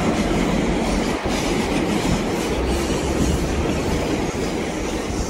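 GO Transit bilevel commuter train running on the rail tracks, a steady, loud rolling rail noise with a low rumble.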